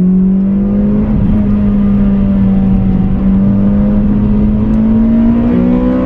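Modified Toyota Corolla's 1.8-litre VVTL-i four-cylinder engine, with ported headers, ported intake and muffler delete, heard from inside the cabin while accelerating. The note steps up at the start, then climbs slowly and steadily as the engine pulls.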